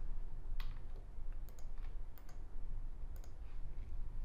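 Computer mouse clicking, about seven sharp clicks, mostly in quick pairs, over a low steady background hum.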